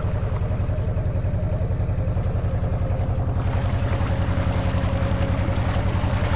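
Narrowboat's inboard diesel engine chugging steadily while under way, with an even beat of about six pulses a second. A rushing hiss joins it about three seconds in.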